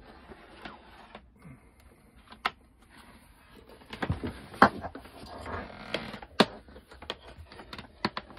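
Handling noise of a cable and a white plastic Starlink router being moved and set down into a storage compartment: rustling and scraping with scattered clicks and several sharp knocks, the loudest about four and a half seconds in.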